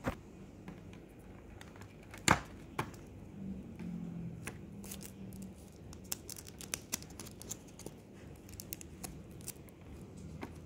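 Fingers handling and picking at thin plastic sticker sheets and their clear sleeves: light crinkling with many small ticks and clicks, and one sharp click about two seconds in.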